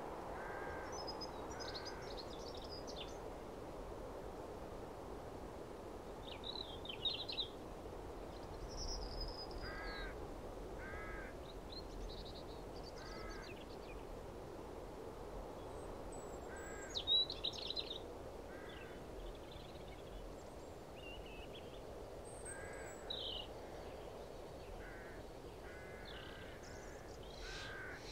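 Birds calling: a short call repeats every few seconds, with higher chirps and twitters in between, over a steady, quiet background hiss.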